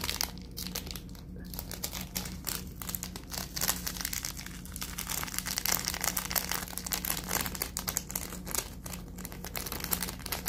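Small plastic Samyang sauce sachet crinkling as it is squeezed and worked between the fingers to empty it: a dense, irregular run of crackles.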